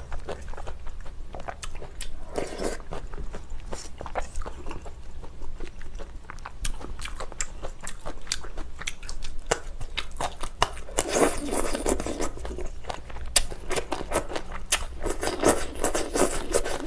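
Close-miked eating of spicy beef soup with glass noodles: wet chewing and mouth clicks throughout, with two longer stretches of noodle slurping, one just past the middle and one near the end.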